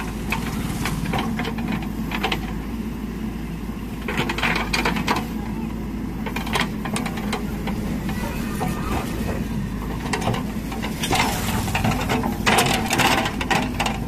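JCB 3DX backhoe loader's diesel engine running steadily while the backhoe works. Soil and stones scrape and clatter under the bucket in bursts, about four seconds in and again for a couple of seconds near the end.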